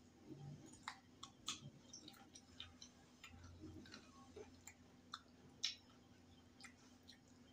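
Faint eating sounds of a person chewing chicken off the bone: irregular wet mouth clicks and smacks, with one louder click about two-thirds of the way through.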